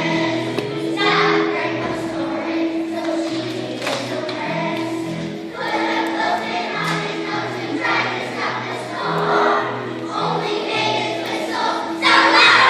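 A choir singing a song over an instrumental accompaniment with a bass line moving in steps; the singing gets louder near the end.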